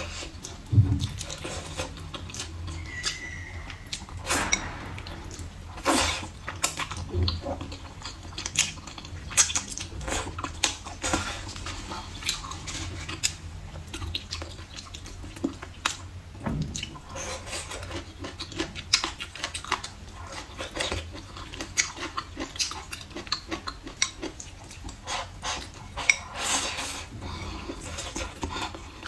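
Close-miked chewing and mouth sounds of someone eating saucy braised rib and glass noodles, with many small sharp clicks of wooden chopsticks against a ceramic bowl.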